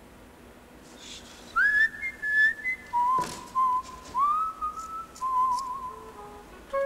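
A person whistling a slow melody, starting about a second and a half in. The notes are held and scooped up into, with a slight waver on some of them. A brief, sharp noise cuts across it about three seconds in.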